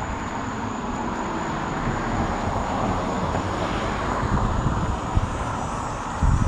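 A vehicle passing by, its noise swelling to a peak a couple of seconds in and then fading, with a few low thumps near the end.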